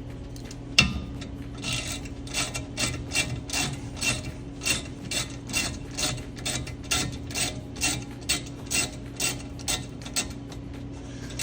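Hand ratchet clicking steadily as it backs out a rear brake caliper bolt with an H7 Allen bit socket, about two to three clicks a second. There is a sharp metal knock about a second in.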